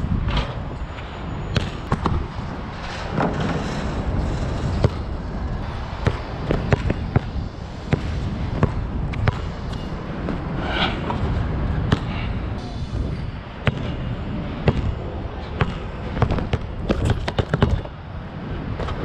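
Nike True Grip basketball bouncing on the court, an irregular string of thuds from dribbles and landings, over a steady low rumble.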